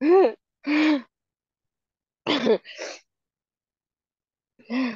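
A woman screaming and shouting in short, loud bursts of anger, each with a rising-then-falling pitch. There are two in the first second, two more a little past the middle, and one at the end. This is a scream-therapy rage release heard over a video call.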